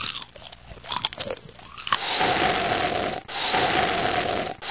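Crunchy chewing of french fries. About two seconds in, it gives way to three long, loud slurps of a milkshake sucked through a straw, each a little over a second, with short breaks between.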